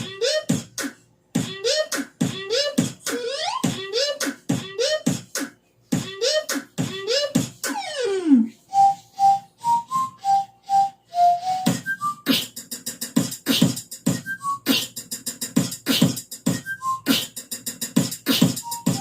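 Beatboxing: a fast beat of mouth-made kicks, snares and hi-hat clicks. Through the first half each beat carries a rising vocal bass sweep; about halfway through, short whistled notes carry a melody over the beat.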